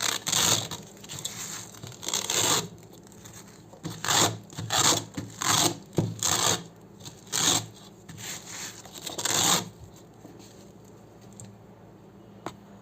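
Hook-and-loop (Velcro) fastener ripped apart again and again: about ten crunchy tearing pulls in quick, uneven succession. They stop about three-quarters of the way through, leaving one small click near the end.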